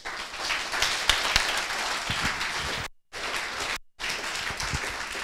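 Audience applauding, with many hands clapping at once, broken twice by brief silent gaps.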